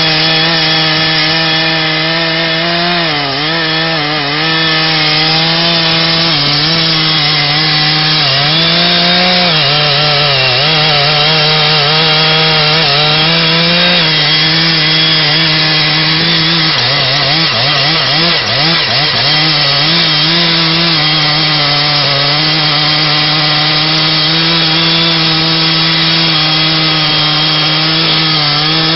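Large two-stroke chainsaw running at high throttle as it cuts into the base of a big tree trunk. Its engine note is steady but dips and wavers several times, around 3 s, 8 s and 17 s in, as the bar loads up in the cut.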